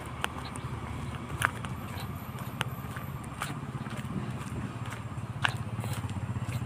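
Footsteps on a concrete path, heard as sharp clicks a second or two apart, over a steady low rumble.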